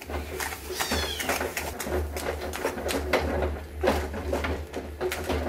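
A metal spoon scraping and knocking quickly against an aluminium kadai as sugar is stirred into thick cooked moong dal paste, with a few high squeaks about a second in.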